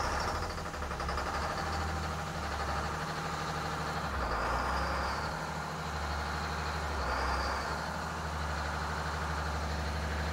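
Turbocharged Detroit Diesel 6-71 two-stroke inline-six marine diesel running at idle, heard through the open engine hatch, after it was brought back to life after more than ten years unused. A faint high whine rises and falls twice over the steady engine note.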